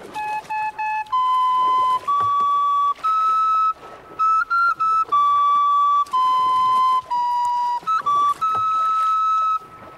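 Background music: a solo flute playing a slow, unaccompanied melody of long held notes, with a few quick ornamental notes between them.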